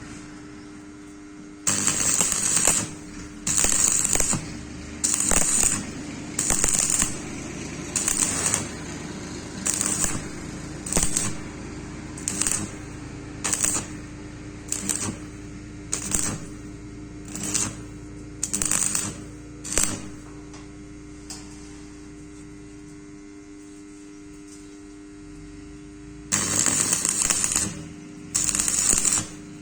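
Electric arc welding on thin galvanized square pipe, done in short strikes: the arc crackles for about half a second to a second at a time, roughly once a second. It pauses for several seconds, then comes back as two longer bursts near the end. A steady electrical hum runs underneath.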